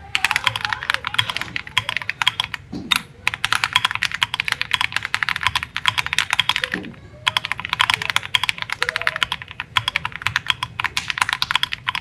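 Fast typing on a mechanical keyboard with Jwick full-nylon switches on 60 g springs: a dense run of key clacks, with a brief pause about three seconds in and another from about six to seven seconds in.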